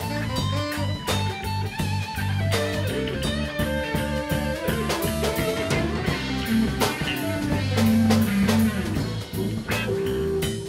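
Live band playing an instrumental passage of a rock cover, with electric bass, drum kit and guitar.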